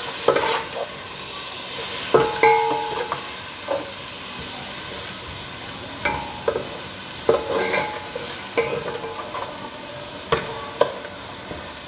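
Garlic frying in oil in an aluminium pot, a steady sizzle, while a slotted metal spoon stirs and scrapes the pan, giving several short scrapes and ringing metal clinks. The garlic is being sautéed over a low flame to cook off its raw smell.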